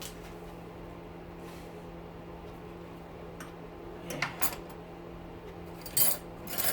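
A few short metallic clinks and taps from metal tools and rotor parts being handled, in two clusters over the last half of the stretch, over a steady low hum.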